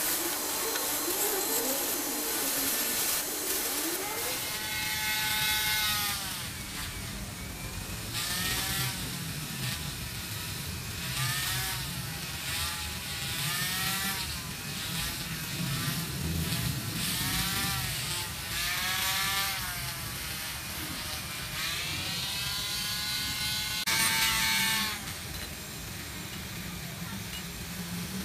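A small handheld power tool's motor whining, its pitch sagging and recovering over and over, about once every one to two seconds. It follows a steadier rubbing sound in the first few seconds.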